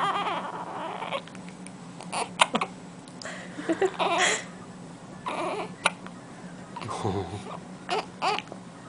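Newborn baby hiccuping: several short, sharp hiccups spaced unevenly a second or more apart, mixed with brief fussy cries.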